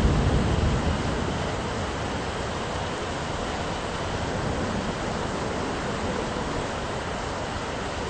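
Steady rain hiss from a thunderstorm, with a low thunder rumble dying away in the first second.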